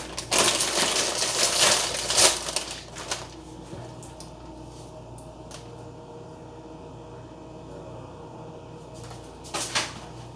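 Crinkling and rattling of a bag of tortilla chips being handled, dense and crackly for the first three seconds, then a faint steady hum, with a few more crinkles near the end.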